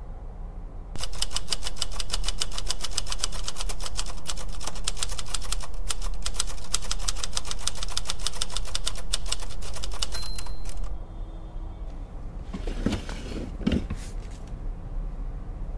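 Manual typewriter typed rapidly and steadily, a continuous clatter of key strikes that starts about a second in, with a brief high ring near its end. The typing then stops, leaving a few quieter, indistinct noises.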